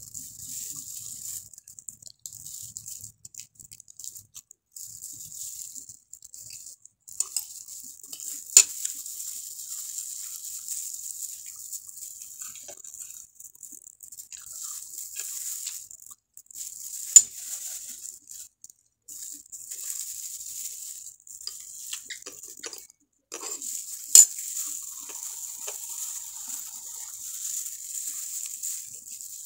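Crackly rustling of plastic food-prep gloves as a whole fried tilapia is picked apart by hand, with three sharp clicks against the dishes.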